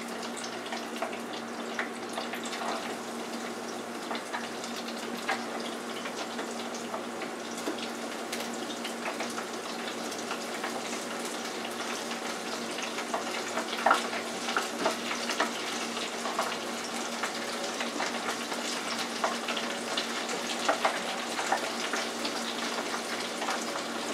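Hot oil in an electric deep fryer sizzling steadily around tempura-battered shrimp, with scattered sharp crackles and pops, a cluster about fourteen seconds in, over a steady low hum.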